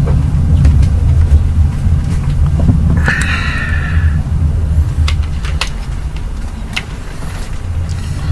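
A steady low rumble throughout. Over it come a short rasp about three seconds in and a few sharp light clicks a little later: small parts of a vape mod, its battery and cover, being handled.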